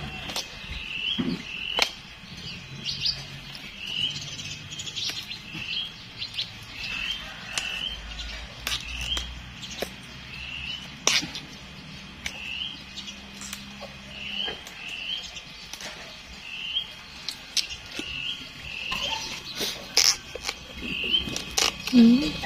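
Young bamboo side shoots snapped off by hand, each break a sharp pop at irregular intervals, the loudest about two, eleven, twenty and twenty-two seconds in. A bird repeats a short chirp about once a second behind them.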